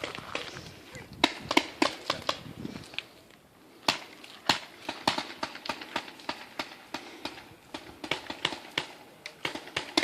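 Paintball markers firing in irregular sharp pops, some single and some in quick runs.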